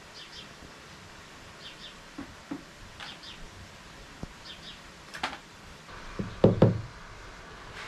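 A bird chirping in short paired notes, repeated every second or so, over a faint background hiss, with a few small knocks. About six seconds in comes a quick run of loud, dull knocks, the loudest sound here, as a trowel is worked in a wooden box of sifted wood ash.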